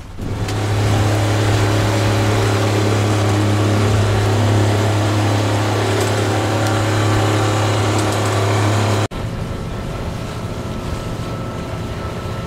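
A boat motor running steadily with a strong, even low hum. About nine seconds in it cuts off abruptly, and a quieter steady drone of running on the water takes over.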